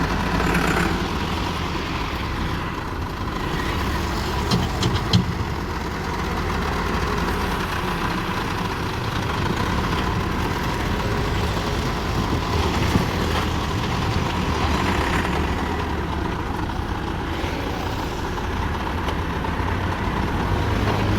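Massey Ferguson tractor running, with a steady low engine rumble, a steady high tone above it and a few sharp knocks about five seconds in. This is the strange noise from the rear wheel that the tractor is being repaired for.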